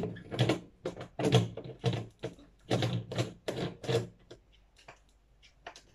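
Plastic humidifier parts being handled: a run of irregular rattles and knocks that stops about four seconds in.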